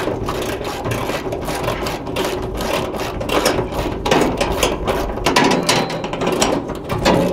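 Socket ratchets clicking rapidly and steadily as the hood hinge bolts on a 1972 Chevrolet Suburban are backed out to take the hood off.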